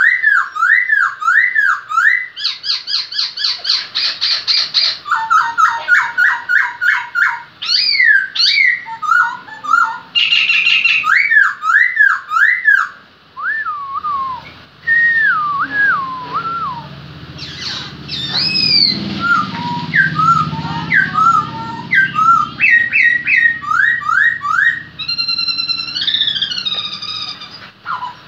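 Caged khướu mun, a black laughingthrush, singing a long, varied song of loud whistled phrases: rising and falling glides, fast runs of repeated notes and trills, with barely a break.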